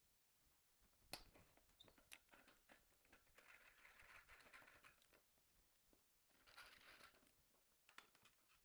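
Near silence, with faint scattered clicks and brief spells of soft rustling, like light handling of parts.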